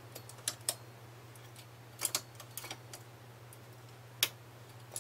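Light, irregular clicks and ticks of a hand transfer tool and latch needles against the metal needle bed of a knitting machine as stitches are moved over by hand, one at a time. A steady low hum runs underneath.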